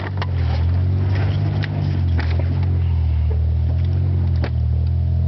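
Tugboat engine running steadily with a deep, even hum, with a few short clicks over it.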